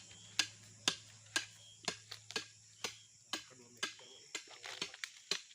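Sharp, regular clicks, about two a second, over a steady high-pitched drone and a low hum that stops near the end.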